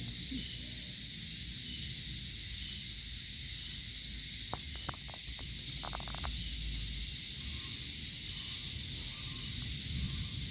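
A steady high-pitched hiss with a low rumble underneath, and a few short faint clicks about halfway through.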